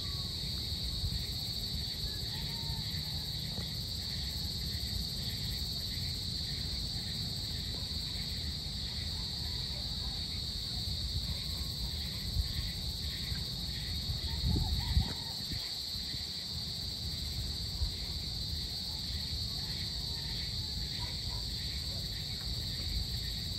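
Evening insect chorus: a steady high-pitched drone with a faint pulsing rhythm beneath it, over a low rumble that swells briefly about fifteen seconds in.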